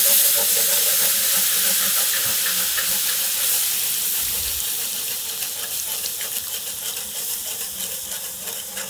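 Cold beef broth hitting a hot butter-and-flour roux in a skillet, sizzling and steaming loudly while it is whisked in, the hiss slowly dying down as the pan cools, with small crackles growing more frequent toward the end.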